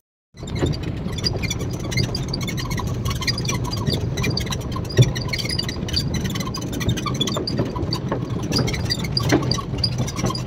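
Ride in an open electric resort buggy: a steady low rumble with scattered small rattles and clicks, and one sharper knock about five seconds in.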